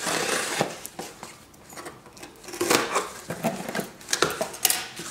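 Cardboard shipping box being handled and opened: a rasping scrape near the start, then rustling and several sharp knocks and clicks of cardboard.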